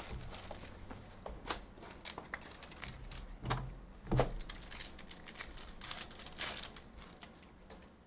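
Hands handling a foil pack and a stack of trading cards: irregular crinkles, rustles and light clicks as the pack is worked open and the cards are flicked through.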